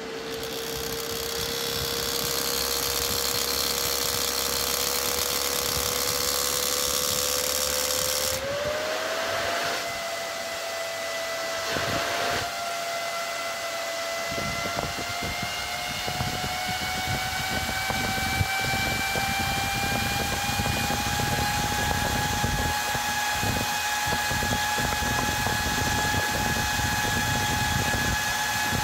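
Brushless PC case fan overvolted far past its 12 V rating by an external ESC, spinning up: a steady rush of air with a motor whine that climbs in pitch as the speed rises, jumping up once about eight seconds in.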